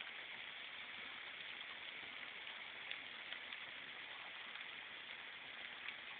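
Steady light rain falling, a soft even hiss with a few faint ticks of single drops.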